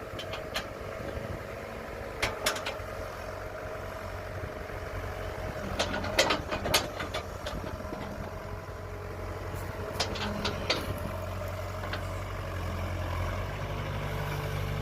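Kobelco hydraulic excavator's diesel engine running steadily, with scattered sharp knocks and clanks as it works.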